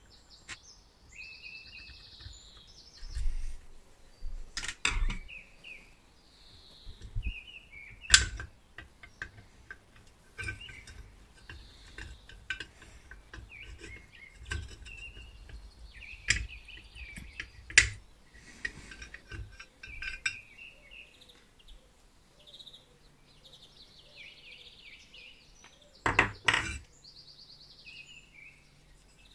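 Sharp metal clicks and knocks as a pointed tool and hands work the bearing cover loose on a vintage Miller mini air compressor's metal housing, the loudest about 8 and 18 seconds in and a double knock near the end. Birds chirp throughout in the background.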